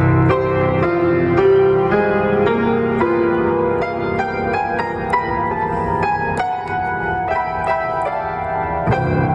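Solo Steinway piano played: chords and melody notes struck in an even rhythm, ringing on between strikes.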